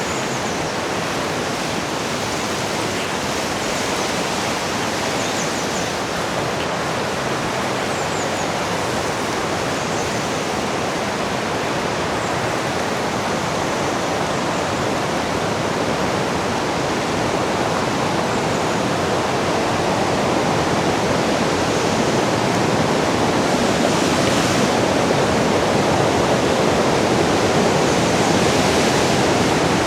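Rushing river water and a waterfall ahead: a steady wash of water noise that grows gradually louder as it is approached.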